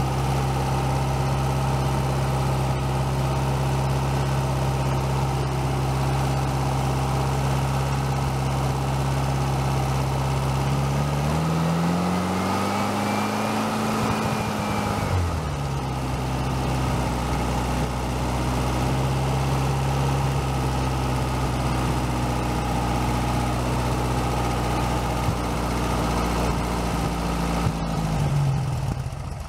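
Freshly rebuilt 1641 cc VW Type 1 air-cooled flat-four running on a bench stand at a steady idle. About eleven seconds in, the throttle is opened by hand at the carburettor and the revs rise, hold and fall back to idle over about four seconds. Near the end there is a brief blip and then the engine shuts off.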